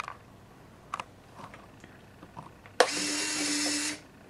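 RC model airliner's nose-gear retract unit cycling the nose wheel. There is a faint click about a second in, then near the end a sharp click and about a second of the retract mechanism running with a steady hum before it stops.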